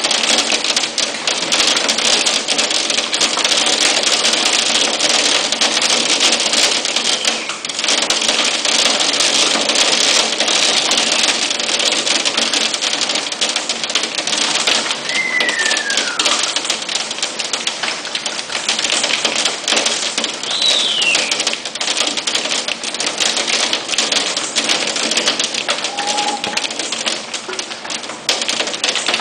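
Hail and heavy rain pelting a paved driveway and a car: a dense, rapid clatter of hailstones over a steady downpour. Twice, a short descending whistle imitating an incoming shell cuts through it.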